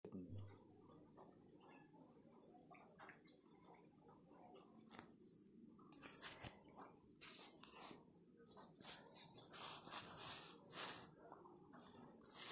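Cricket chirping steadily in a high, fast, even pulsing trill, with a few short rustling noises in the second half.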